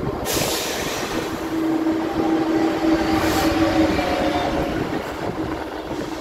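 Freight train of container wagons hauled by a diesel locomotive passing on the through line, the wagons rolling over the rails. A steady tone sounds for about three seconds in the middle.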